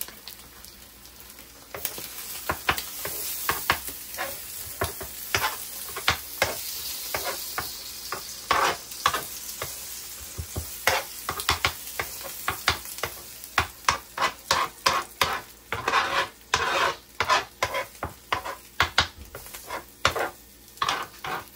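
Eggs sizzling on an electric griddle while a metal spoon breaks them up and scrambles them, scraping across the griddle's surface in short repeated strokes. The strokes grow quicker and more frequent through the second half.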